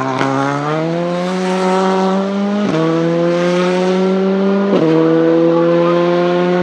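Škoda Fabia R5 rally car's turbocharged four-cylinder engine accelerating hard, its pitch climbing steadily. It upshifts about two and a half seconds in and again about two seconds later, dropping sharply each time before climbing again.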